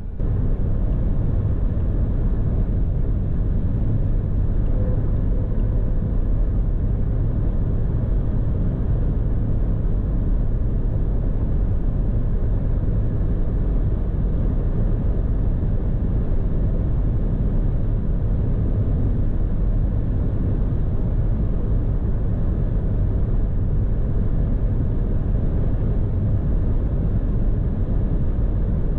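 Steady cabin noise of a BMW 118d cruising on the motorway at 160 km/h: an even low rumble of road, wind and the four-cylinder diesel engine at constant speed.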